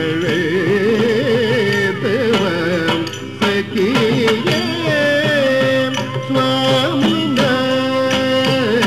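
Carnatic music for a Bharatanatyam varnam in raga Kamboji: a voice sings gliding, ornamented notes over a steady drone, holding a few long notes in the middle, with occasional sharp percussion strokes.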